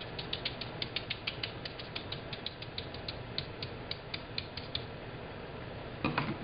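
Round paint brush dabbing paint onto crinkled fabric in quick stippling strokes, a sharp tick about five or six times a second that stops about five seconds in. A brief vocal sound with a bending pitch at the very end.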